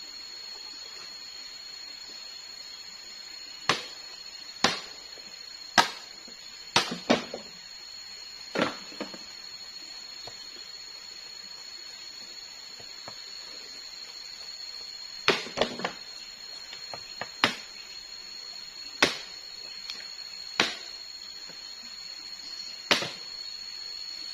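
A blade chopping into wood: about a dozen sharp, irregular knocks in two loose clusters, the work of splitting out dry inner wood for fire tinder.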